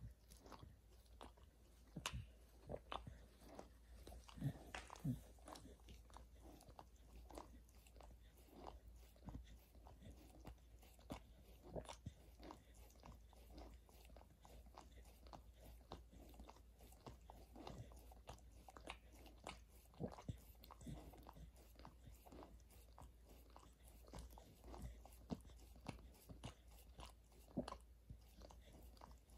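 Border collie chewing and crunching on something hard, with irregular sharp crunches several times a second.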